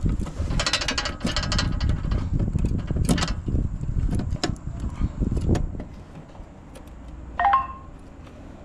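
Hands handling fibre-optic drop cables and plastic connectors inside a fibre distribution cabinet: rustling with many sharp clicks and knocks over a low rumble, quieting after about six seconds.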